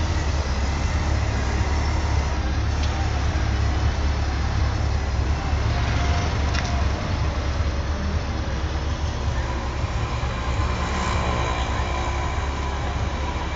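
Honda Gold Wing touring motorcycle engine running steadily, a low rumble as the bike pulls out, mixed with street traffic noise.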